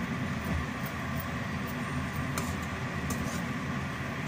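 Raw plantain slices cooking in a pan in a thin masala gravy, with a steady low background hum and a soft simmering hiss. A spatula stirring the pieces gives a couple of light clicks against the pan about two and a half and three seconds in.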